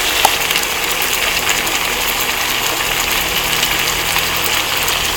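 Fish frying in hot oil in a pan, a steady sizzle, with the fish nearly cooked through.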